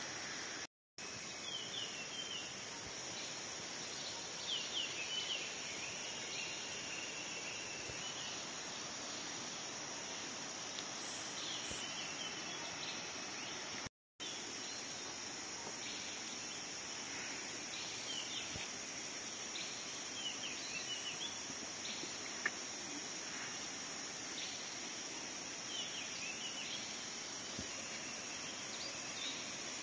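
Forest ambience: a steady high-pitched insect drone with short bird chirps and trills scattered throughout. The sound cuts out completely for a moment twice, about a second in and about halfway through.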